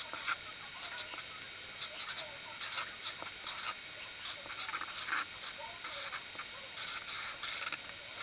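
Black felt-tip marker writing on paper: a quick, irregular run of short scratchy strokes as block letters are drawn.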